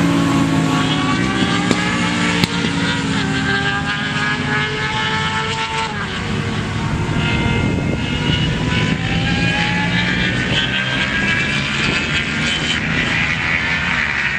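Racing motorcycle engines at full throttle on a circuit, several bikes overlapping. The pitch climbs and then drops back repeatedly as the riders accelerate and shift up through the gears.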